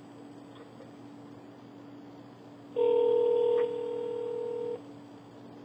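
A cordless phone handset's earpiece plays one steady two-pitch ringback tone lasting about two seconds, starting about three seconds in. The ringback means the call is ringing on the line. A faint steady hum sits underneath.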